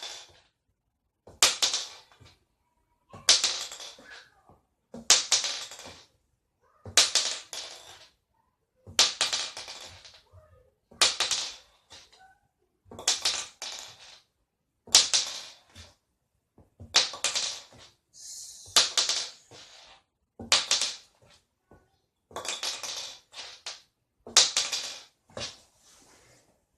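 A small .410 shotgun shell flipped and landing over and over, about once every two seconds: each landing a brief clatter of sharp knocks as it hits and bounces.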